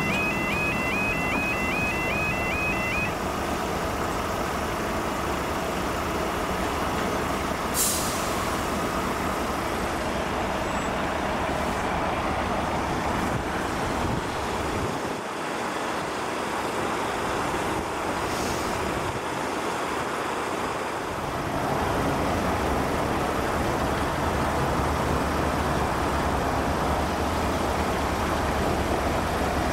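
UK level crossing yodel alarm warbling, which stops about three seconds in as the barriers settle down. After it a heavy diesel engine runs steadily, with two short hisses of air about 8 and 18 seconds in, and the rumble grows louder about 22 seconds in.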